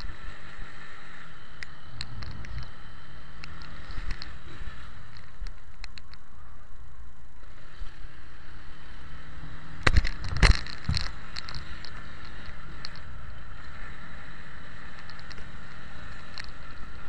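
Riding on a Mondial Zone 150 motorcycle: steady wind and road noise with the engine running underneath, scattered light rattling clicks, and a cluster of sharp knocks about ten seconds in, the loudest sound.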